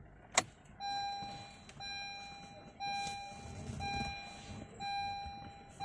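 Honda Amaze's dashboard warning chime, repeating about once a second with each tone held nearly a second, just after the ignition is switched on. A single sharp click comes just before the chime starts.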